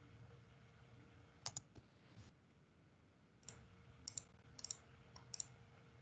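Faint, sharp computer clicks over near silence: a pair about a second and a half in, then a quick run of clicks between about three and a half and five and a half seconds. A faint steady hum lies underneath.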